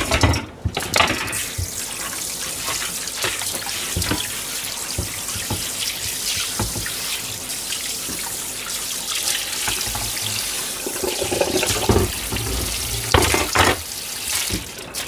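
Kitchen tap running into a stainless steel sink, water splashing steadily, with a few knocks near the start and near the end.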